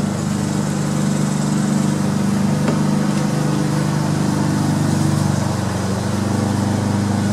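Steady hum of a motor running at constant speed, a few low pitches held without change.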